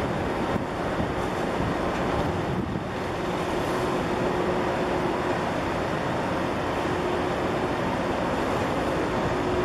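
Steady rumble and hum of the container ship ONE Honolulu under way, mixed with wind noise on the microphone and water.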